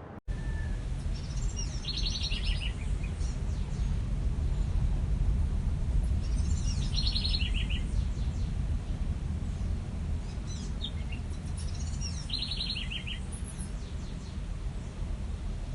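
A songbird repeating the same phrase about every five seconds, a falling note followed by a quick run of short chirps, over a steady low rumble of background noise.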